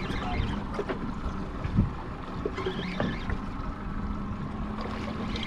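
Wind rumbling on the microphone on an open boat at sea, with a faint steady hum and a few short knocks while an angler fights a fish on a spinning rod.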